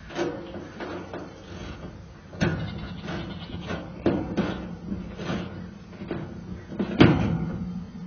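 Knocks and clanks of metal parts and tools being handled while the old contactor is got out of a home air-conditioner's outdoor condenser unit. There are several sharp strikes, the loudest about seven seconds in, over a low steady hum.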